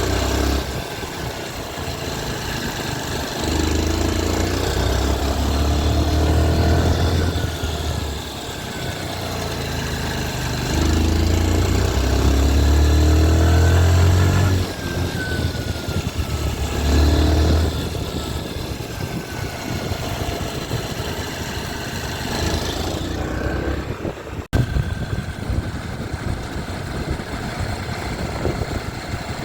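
TVS Sport 110's single-cylinder four-stroke engine revved up and back down three times, then idling steadily. The owner says this engine makes a strange noise.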